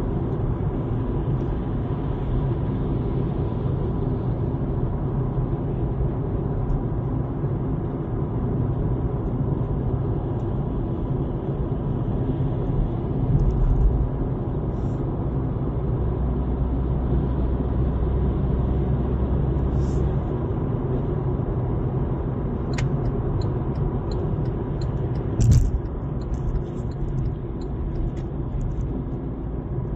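Steady low rumble of tyres and engine heard from inside a car cruising on a highway, with one short, sharp thump about three-quarters of the way through.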